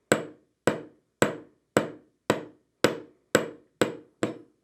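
Flat face of a jewelry hammer lightly tapping a 20-gauge craft-wire S-hook clasp on a metal bench block, about nine even taps at roughly two a second, each a sharp click with a brief ring. The hammering flattens and work-hardens the wire.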